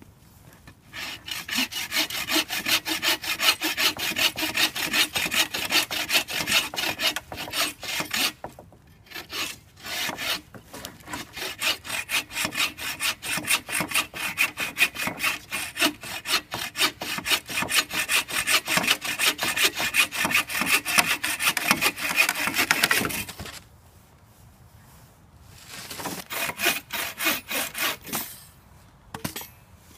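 Hand saw cutting through wood in quick, even back-and-forth strokes, with a couple of brief breaks; the sawing stops about three-quarters of the way through, then resumes for a short run near the end.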